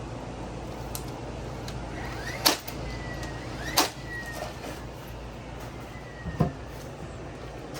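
Framing nail gun driving nails into deck lumber: two sharp shots about a second and a half apart, then a lighter knock near the end, over a steady low hum.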